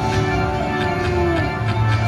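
Video slot machine playing its free-spins bonus music: held synthesized notes over a steady low hum.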